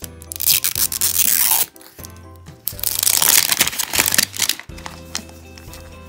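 Clear plastic wrap being torn and peeled off a Zuru 5 Surprise Toy Mini Brands capsule ball, in two long pulls of a second or more each, the second starting about three seconds in. Background music plays throughout.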